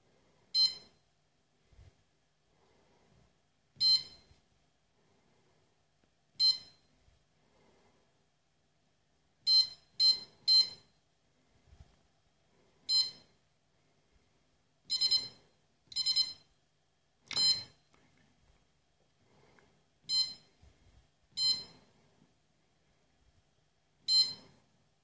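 Kenwood BM450 bread maker's control panel beeping as its touch buttons are pressed: about a dozen short, high-pitched electronic beeps, mostly a couple of seconds apart, with three in quick succession about ten seconds in.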